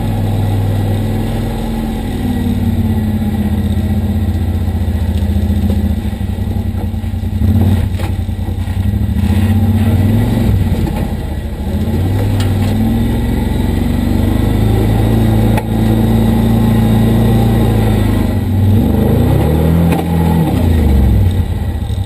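Kawasaki Teryx4 side-by-side's V-twin engine running under load while towing a felled tree on a strap, its pitch rising and falling repeatedly with the throttle.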